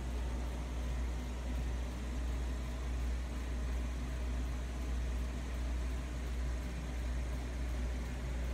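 Aquarium equipment running steadily: a low, even hum with a constant hiss over it, from the tank's air pump and the stream of air bubbles.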